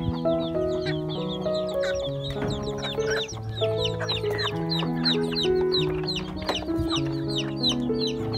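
Chicks peeping in rapid, high, falling chirps, with hens clucking, over background music of slow held notes.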